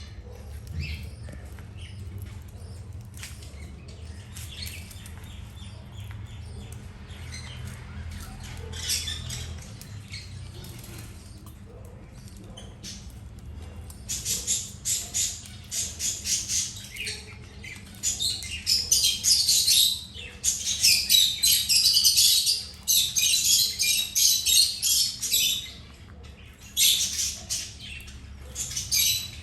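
A group of small birds chirping and squawking. The calls are faint and scattered at first, then about halfway through they turn into a loud, dense, rapid chatter that comes in bursts.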